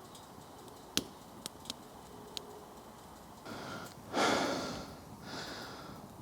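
Firewood being worked by hand: a sharp knock about a second in and a few light taps, then several rasping strokes, the loudest just past four seconds.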